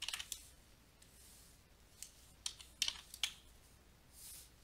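A handful of faint, sharp clicks of computer input, a stylus and keys or mouse buttons, clustered from about two to three and a half seconds in, with a few soft hissing swells between them.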